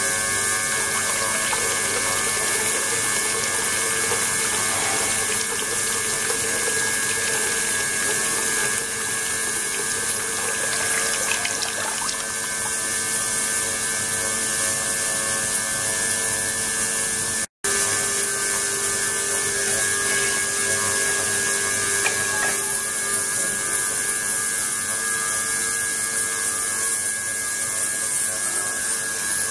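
Submerged ultrasonic transducer running in a water-filled stainless tank, with water flowing over it: a steady hiss with several steady tones over it, broken once by a momentary dropout partway through.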